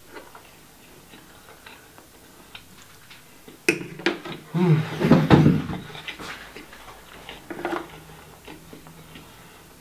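Close-up eating sounds: small mouth clicks while chewing, a sharp clink of a metal fork against the dish a little under four seconds in, then a loud hummed, puffing exhale through closed lips lasting about a second and a half, with a shorter one near the end.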